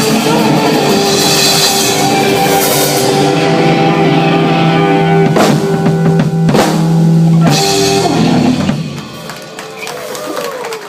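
Live rock band with drum kit and electric guitar ending a song: a held chord punctuated by two sharp drum hits, then the band stops about eight seconds in and the sound rings out and fades.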